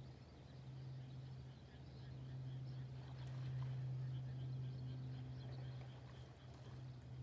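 Flooded rice-paddy ambience: a steady low hum under faint, scattered high chirps of small animals.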